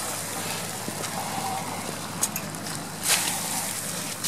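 Torch flames and burning leaf litter, wet from a bucket of water, give a steady hiss, with two short sharp crackles about two and three seconds in.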